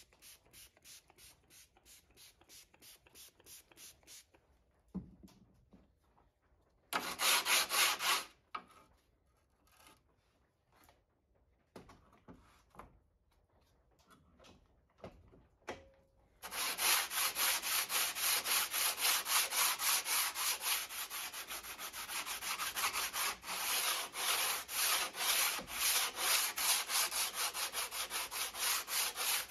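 Sandpaper rubbed back and forth by hand over the rusty steel blade of an antique crosscut saw, about three strokes a second, starting a little past halfway and keeping on steadily. Before that, a small spray bottle gives a quick run of hissing sprays onto the blade, and there is a short burst of rubbing.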